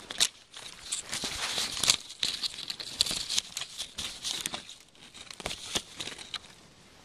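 Close rustling and crackling of dry twigs and brush brushing and scraping against the camera as it is moved under a low shrub, a dense run of small snaps and scrapes that dies down near the end.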